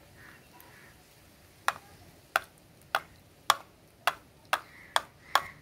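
Stainless steel mixer-grinder jar tapped repeatedly against the rim of a small metal tea sieve to knock out thick green paste. The sharp metallic taps start about a second and a half in and come about two a second, quickening a little.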